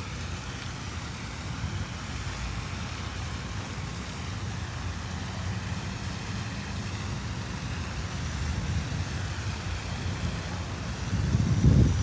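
Steady outdoor rumble and hiss with wind buffeting the phone's microphone, swelling into a louder gust about eleven seconds in.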